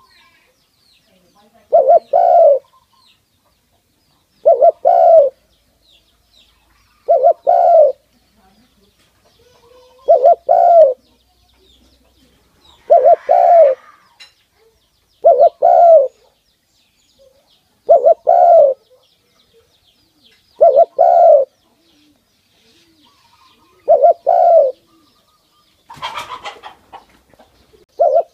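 Spotted dove cooing close up: a short phrase of two or three quick coo notes, repeated about every two and a half seconds, around ten times. Near the end a brief rustling noise.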